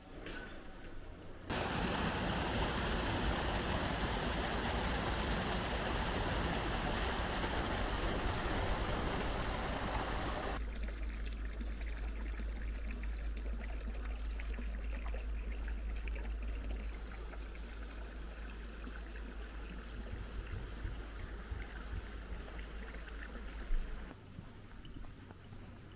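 Water running in an open stream or channel, a loud even rush at first that drops abruptly to a quieter flow about ten seconds in, with a steady low rumble underneath. There is a single sharp knock just before it cuts off near the end.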